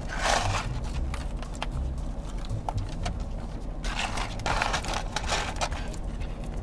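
Crinkling and rustling of paper fast-food packaging, with scattered crackles that grow dense about four seconds in, over a low steady hum inside a car.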